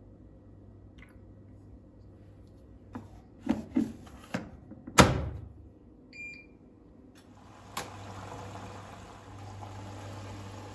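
Household handling sounds: a few knocks and a louder thud, a short electronic beep, then a soft steady hiss.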